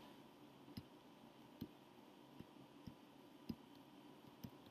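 Faint computer mouse clicks, about six, spread irregularly over near silence.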